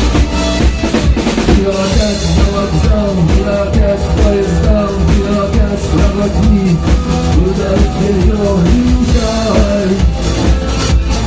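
Live rock band playing an instrumental passage: a steady drum-kit beat with bass drum and snare under bass and a pitched lead melody.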